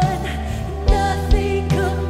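A live worship band playing: a woman sings a held, wavering melody into a microphone over electric guitar and bass, with a few low beats about a second in.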